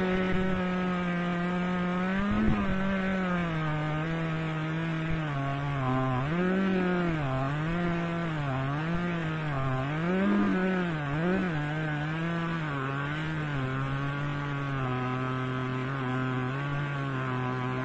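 Two-stroke petrol chainsaw mounted in a chainsaw mill, running under load as it rips lengthwise through a log. Its engine pitch dips and recovers again and again as the chain bogs in the cut and picks back up.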